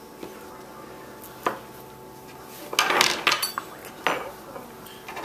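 A kitchen knife knocking on a plastic cutting board while slicing a banana. There is a single sharp tap about a second and a half in, then a quick cluster of knocks around three seconds, and another near four seconds.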